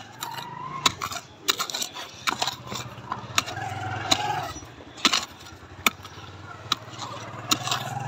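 A digging tool striking and scraping hard, stony soil in quick, irregular strokes, over a steady low hum.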